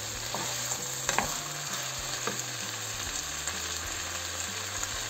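Chicken, cabbage and other vegetables sizzling steadily in hot oil in a kadai, with a few light clicks of a wooden spatula stirring them.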